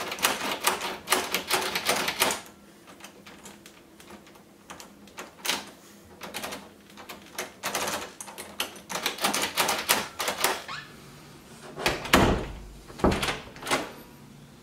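Newly fitted door knob being turned and its spring latch clicking in and out: a quick run of clicks over the first two seconds, then scattered clicks. A couple of low thuds near the end, the door being pushed shut against its frame.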